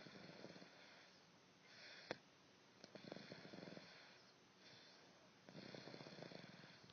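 Snoring: a fluttering, rattly breath alternates with a hissing breath, the cycle repeating about every three seconds. One sharp click comes about two seconds in.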